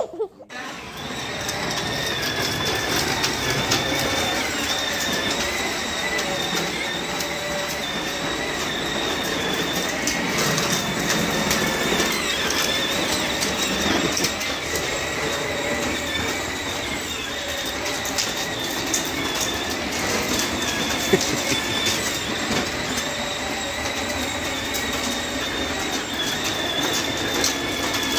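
John Deere battery-powered ride-on toy tractor driving across concrete: its electric motor and gears whine steadily, with the rattle of its hard plastic wheels.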